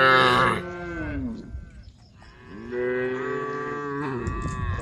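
Cattle mooing: a loud moo at the start that falls in pitch as it ends, a second long moo a couple of seconds later, and another starting near the end.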